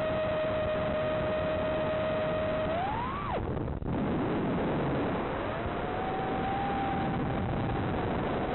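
FPV drone motor whine under steady radio hiss. The whine holds one pitch, rises sharply about three seconds in, then cuts off abruptly as throttle is chopped for a roll. After a short gap it climbs back and holds a little higher as the drone picks up speed.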